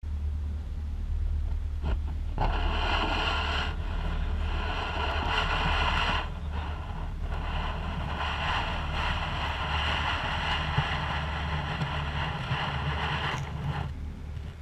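Motor yacht under way on open water: a steady deep rumble of wind buffeting the microphone, with a rushing hiss of water along the bow that comes in a couple of seconds in, drops away briefly a few times and fades near the end.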